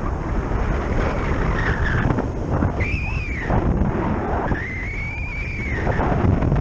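Wind rushing and buffeting over the camera microphone in flight under a paraglider. Twice a high whistling tone rises and then falls, the second one longer.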